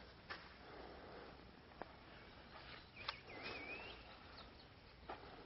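Near silence, with faint footsteps scuffing on soft sand and one short, wavering bird call about three seconds in.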